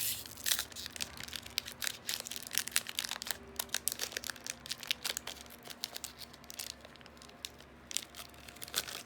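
Packaging of a Yu-Gi-Oh! booster box being handled and torn open: a rapid run of crinkling and tearing crackles that thins out over the last couple of seconds.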